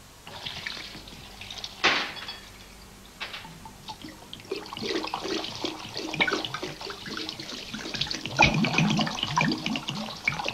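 Liquor splashing into a sink as bottles are emptied, with glassy clinks and knocks throughout and one sharp knock about two seconds in.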